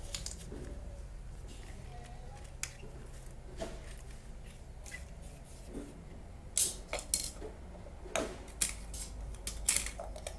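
Metal RC excavator track undercarriage being handled and shifted on cardboard: scattered sharp metal clicks and clinks, with the loudest cluster in the second half.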